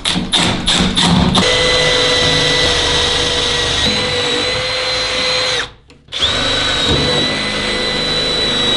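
Milwaukee M12 Fuel impact driver driving a screw in short bursts of hammering, then a cordless drill boring steadily into a wooden door with an even whine. The drill stops for a moment about six seconds in and starts again.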